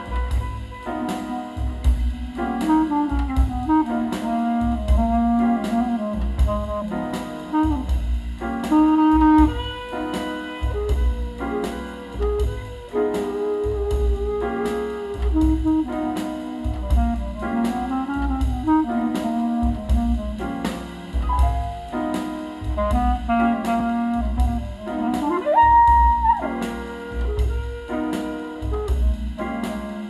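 Jazz track with a steady beat, played back through full-range loudspeakers driven by a single-ended 300B tube amplifier.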